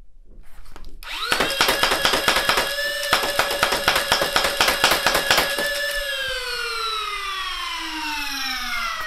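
Flywheel motors of a 3D-printed Nerf Gryphon, a Stryfe-clone blaster, spinning up about a second in and holding a steady whine while a rapid string of shots clatters out, then winding down in a long falling whine once the rev trigger is released, about six seconds in.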